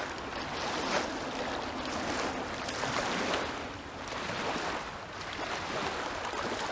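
Small waves lapping and washing onto a sandy shoreline, swelling and easing every second or two.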